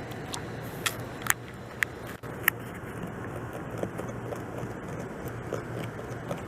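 Beaver gnawing bark off a log: four sharp, crisp crunches in the first two and a half seconds, then softer scattered chewing clicks over a steady low background hum.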